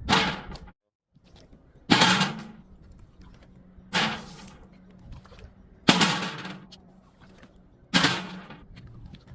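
Objects being smashed one after another: five sharp cracks about two seconds apart, each with a short crunching tail.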